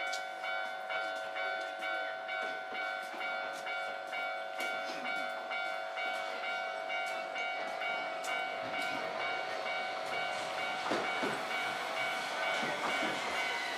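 Level-crossing warning bell ringing rhythmically, about three strikes every two seconds. From about eleven seconds in, a Tokyu 300 series tram's wheels and motor grow louder as it draws in, with a falling whine as it slows for the stop.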